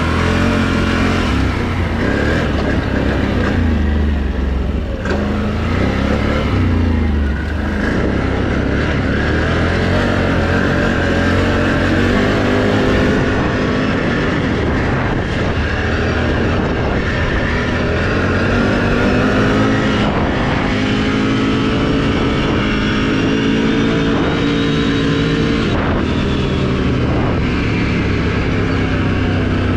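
Can-Am Renegade XMR 1000 ATV's V-twin engine running under way. It revs up and down several times over the first eight seconds or so, then holds a steadier pitch while cruising.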